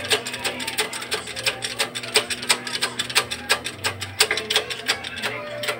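Rapid, irregular metallic clicking and clacking from a hand-worked mechanism, with the shop press brought down onto the rusted pivot pin of a Bajaj RE's front knuckle.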